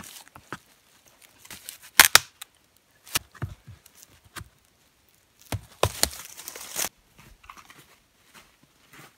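Green aspen trunk notched with a hatchet being broken over by hand. Two sharp cracks come about two and three seconds in, then a long splintering, tearing crackle of wood fibres as the trunk gives way.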